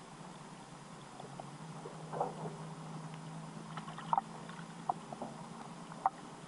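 Underwater ambience picked up by a submerged camera: a faint steady hiss with a low hum through the middle, and scattered sharp clicks and ticks, the loudest about four seconds in and again about six seconds in.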